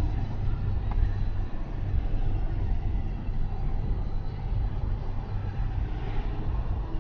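Car driving on a winding road, heard from inside the cabin: a steady low rumble of engine and tyres on the road.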